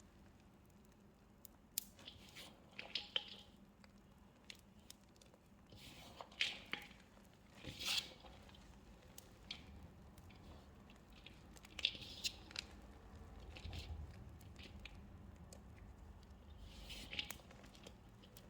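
Small pieces of gym chalk crushed and mixed by hand in wet soap paste: irregular, quiet wet squishes and soft crunches with a few sharper clicks.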